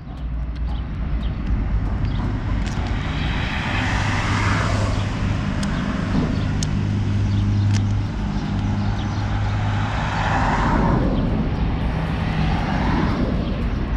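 A steady low engine drone with traffic noise that swells and fades about three times, and light crackles of plastic transfer film being peeled off a vinyl sticker.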